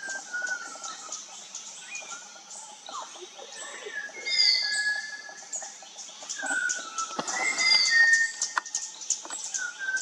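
Malabar whistling thrush calling: several clear whistled phrases, some notes sliding down in pitch, the loudest about four and a half and eight seconds in. Behind it runs a dense, steady chorus of high chirps and ticks.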